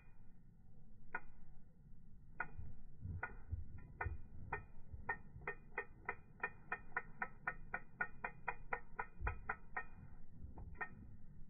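Spinning reel clicking as a carp pulls line off it on a run. Single sharp clicks about a second apart speed up to about four a second in the middle, then slow again near the end.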